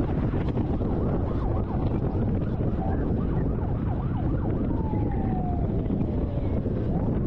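Steady road and wind rumble of a moving car, with police escort sirens faintly wailing and yelping over it: quick short yelps about two seconds in, then a long falling wail near the end.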